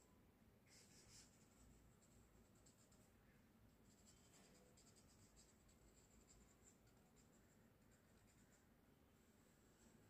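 Faint scratching of a pen drawing on paper, in short irregular strokes over quiet room tone.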